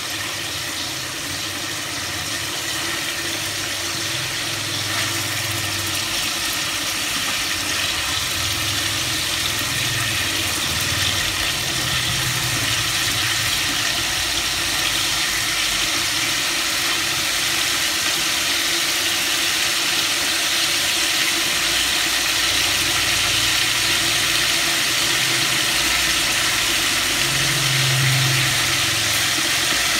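Chicken drumsticks frying in hot oil in a wok, a steady sizzling hiss that grows slightly louder, with a low rumble underneath. The pieces are being fried until golden.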